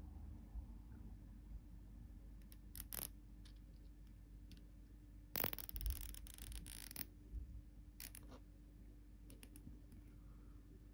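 Small nylon cable tie being pulled tight around a bundle of thin wires: a fast run of ratchet clicks lasting about a second and a half midway, with a few single clicks and light handling sounds before and after.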